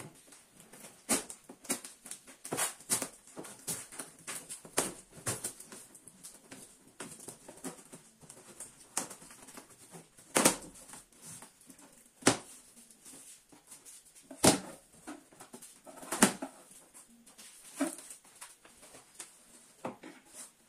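Cardboard shipping box being opened: a knife slitting packing tape, then the cardboard torn apart and the flaps pulled back, as irregular rustles, rips and knocks.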